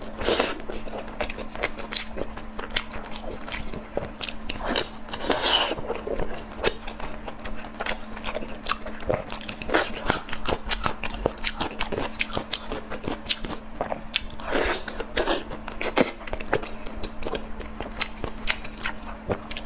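Close-up eating sounds: a person biting and chewing crunchy food, with many irregular crisp crunches and wet mouth clicks, over a steady faint hum.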